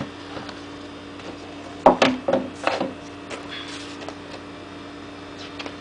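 A paper instruction booklet handled in the hands, with a few short rustles of its pages about two to three seconds in and a fainter one near four seconds, over a steady hum.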